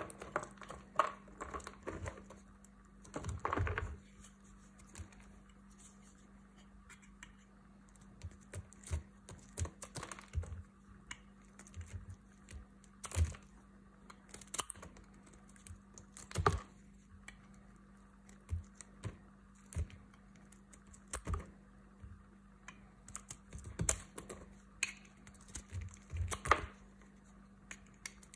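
Snap-off utility knife blade shaving and scraping a bar of dry tar soap: irregular crisp clicks and short scratches with brief pauses between strokes.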